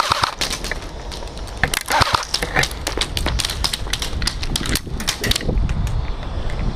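Airsoft guns firing: rapid, irregular clicks and snaps, coming in clusters.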